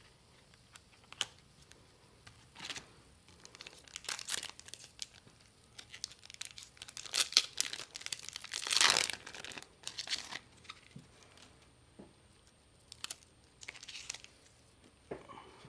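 A trading-card booster pack wrapper being crinkled and torn open, in a series of short crackly rustles with the loudest, longest tear about seven to nine seconds in.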